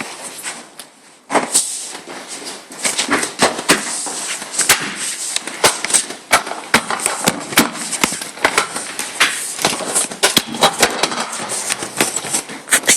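Dense, irregular clicking and knocking from a kick scooter and a door being handled together, as a scooter and phone are held in one hand while the other works the door. A short lull about a second in, then the knocks run on close together.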